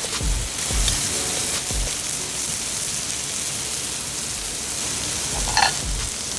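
Background music with a beat over a steady hiss, with a short sharper sound near the end.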